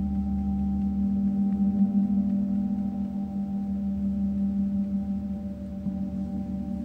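Meinl Eight Corners of Heaven mirror gong ringing on in a sustained wash: a deep steady hum with several higher overtones layered above it, easing off a little near the end.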